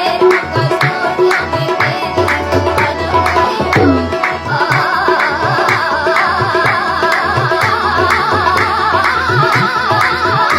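Indian song with tabla playing a steady rhythm under held instrumental tones. About four and a half seconds in, a woman's voice comes in singing a wavering, ornamented melody.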